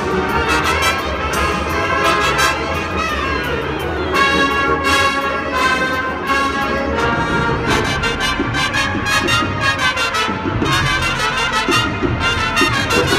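Winds ensemble of brass and saxophones playing loud, sustained chords over percussion hits.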